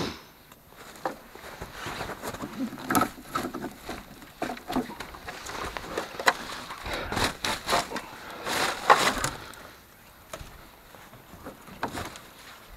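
Scattered knocks, clicks and rustling from someone moving about and handling parts at the front bumper of a Jeep, with the loudest cluster of knocks about nine seconds in.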